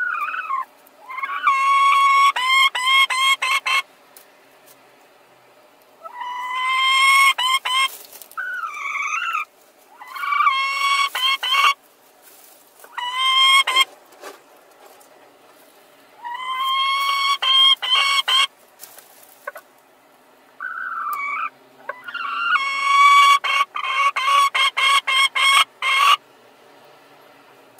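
Domestic hen calling loudly in about six bouts, each a drawn-out squawk followed by a rapid run of short clucks, with short pauses between.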